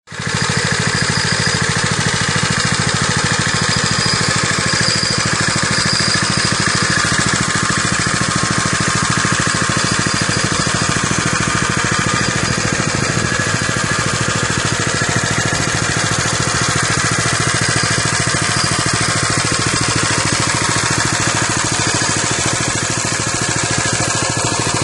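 Single-cylinder four-stroke engine of a custom Baja MB165 minibike idling steadily.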